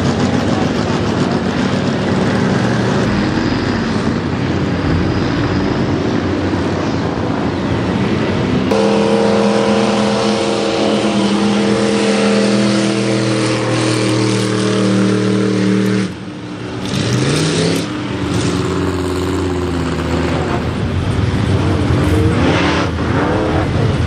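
Big-engined mega mud trucks revving hard at full throttle as they plough through a mud bog, their tyres churning and throwing mud. In the middle one engine holds a high, steady pitch for several seconds. The sound then drops briefly and picks up again with rising and falling revs.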